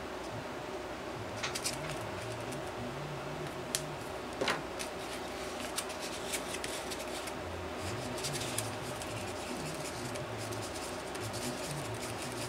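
Scattered small clicks and scratches from handling JB Weld epoxy tubes and stirring the two-part epoxy with a stick on a paper plate, over a low steady hum.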